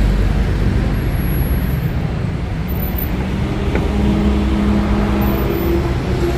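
Busy road traffic: a steady low engine rumble, with a humming engine tone from a passing or idling vehicle joining about halfway through.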